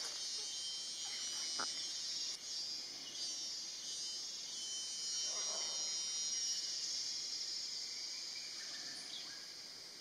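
Steady, high-pitched drone of a forest insect chorus, easing off slightly near the end.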